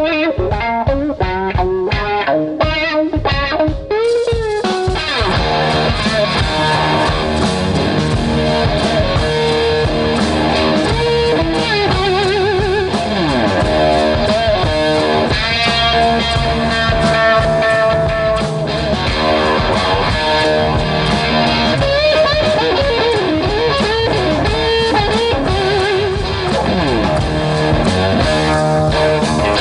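Rock music led by electric guitar: separate guitar notes and chords for about the first four seconds, then the music fills out with a steady bass line underneath and keeps going.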